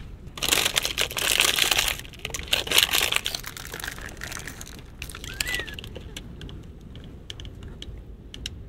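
Thin plastic food wrapper crinkling loudly for about three seconds as it is torn open and peeled off, then faint scattered rustles and small ticks while eating.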